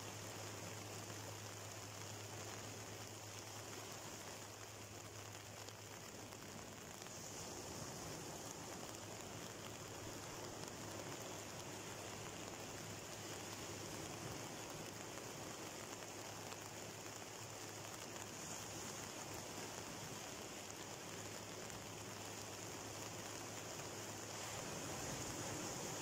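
Sea surf breaking and washing in over a rocky shoreline: a steady rushing wash with a fizzing hiss, swelling a little a couple of seconds before the end as a bigger wave comes in.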